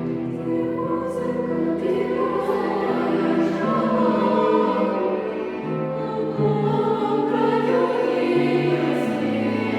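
Children's choir singing a song, with low held cello notes underneath.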